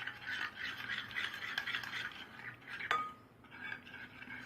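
A utensil stirring slime mix of glue and food colouring in a container, scraping steadily against its sides, with one sharp clink about three seconds in.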